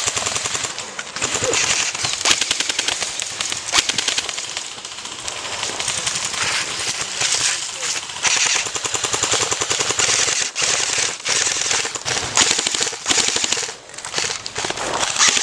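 Airsoft guns firing long full-auto bursts: fast, evenly spaced clicking shots, with short breaks between bursts.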